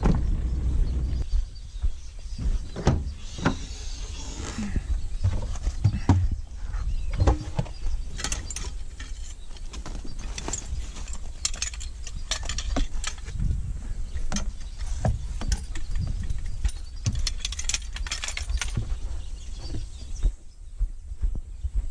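A vehicle's low rumble for the first second or so, then repeated knocks, clicks and clatter of snake-catching gear (tongs, bag, container) being handled and unloaded from the back of the vehicle, followed by footsteps on sandy ground near the end.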